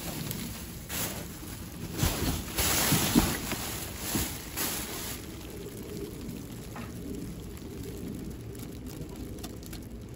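Clear plastic bags and cardboard rustling and crinkling as they are handled and pulled about in a dumpster. The crackling comes in bursts, loudest about two to three seconds in, then settles to a softer rustle.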